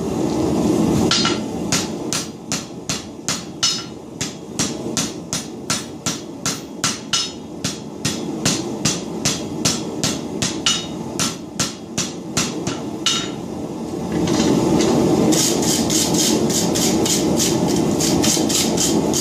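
Hand hammer striking a red-hot bundle of chainsaw chain on a steel anvil, about three blows a second, then after a short pause about two-thirds through, faster and brighter blows: forge-welding the chain into a solid bar. Under the blows, the steady rush of the gas forge burner.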